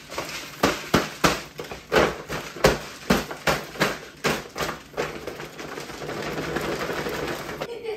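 A spatula knocking against a frying pan about three times a second while green beans sizzle in it, then a few seconds of steady sizzling that cuts off abruptly just before the end.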